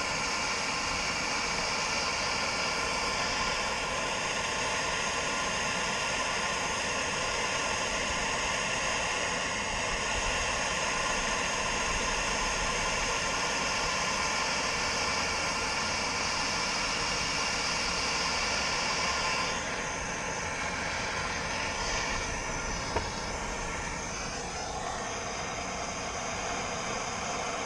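MAP gas torch burning with a steady hiss against a boat propeller's hub, heating it to loosen the propeller on its shaft. The sound drops and changes about twenty seconds in, followed a few seconds later by a single sharp click.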